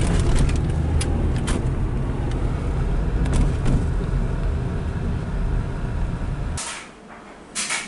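Low rumble of a car's engine and tyres heard from inside the cabin while driving slowly, with scattered light clicks and ticks. The rumble cuts off about six and a half seconds in, followed by two brief hissing noises.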